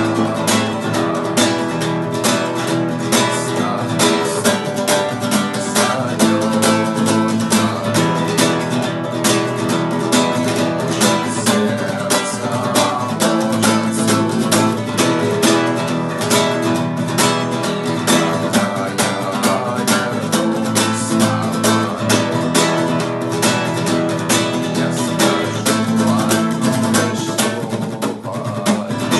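Acoustic guitar strummed in a steady, even rhythm, with sharp percussive strokes: the muted 'knock' strumming technique.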